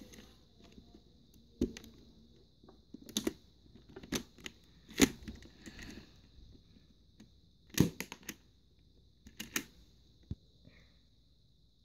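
Sharp plastic clicks and snaps from a hand-built Lego pistol's trigger mechanism being worked by hand, coming singly and in quick twos and threes at irregular intervals.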